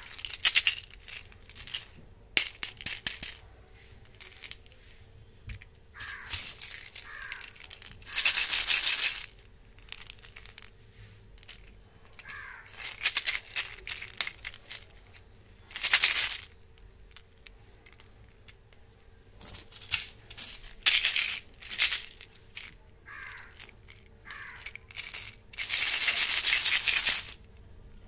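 Plastic tubes of candy-coated chocolate gems being shaken, the candies rattling inside in bursts of about a second at a time. Between them, sharp clicks and knocks of the plastic tubes being picked up and set down against one another.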